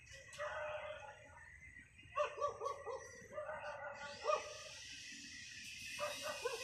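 A dog barking in several short bouts, the loudest a quick run of barks a little over two seconds in.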